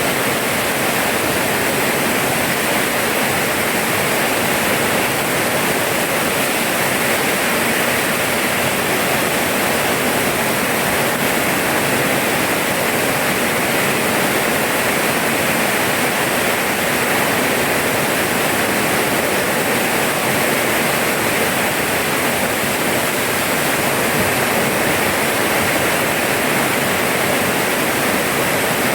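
Steady rainfall: an even, unbroken hiss that holds the same level throughout.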